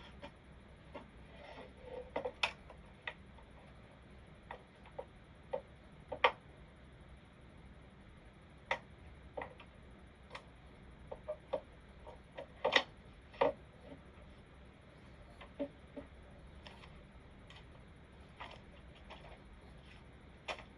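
Scattered, irregular clicks of computer keyboard keys, single taps and quick pairs with pauses of a second or more between them, as someone works quietly at a computer.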